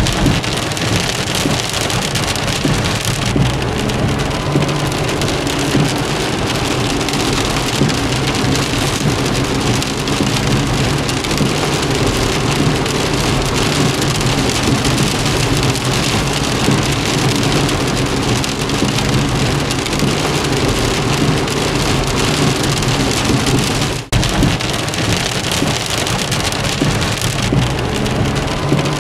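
Steady heavy rain drumming on a car, heard from inside, with a low rumble underneath. The sound drops out for an instant once, a few seconds before the end.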